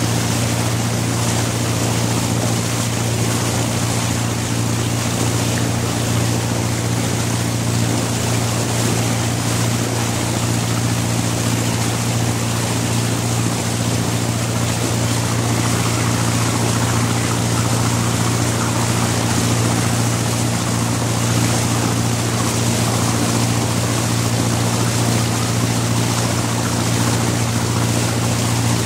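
27-foot cabin cruiser's 50 HP diesel engine running steadily at cruising speed, heard on board, over the constant rush of water in the stern wash.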